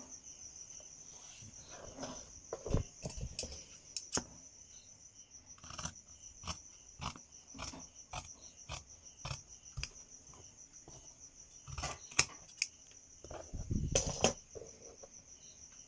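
Tailoring scissors cutting through four layers of cotton blouse fabric, a run of sharp snips about two a second, over the steady high chirring of crickets.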